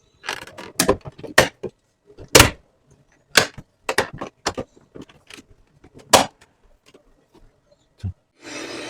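Irregular sharp clicks and knocks of hard plastic parts of a Viomi robot vacuum being handled and fitted together, about a dozen over several seconds. Near the end a steady rushing noise starts.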